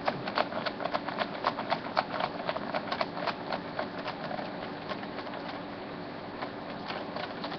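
Quick, irregular small clicks and taps of a screwdriver and screws working on the plastic underside of an IBM ThinkPad T42 laptop as its screws are taken out, busy at first and thinning out after about three and a half seconds.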